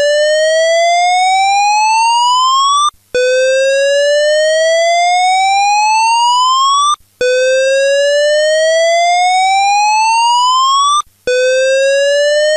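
Fire alarm voice evacuation system sounding its evacuation whoop tone: a rising sweep about four seconds long, repeated three times with a short break between, and a fourth beginning near the end.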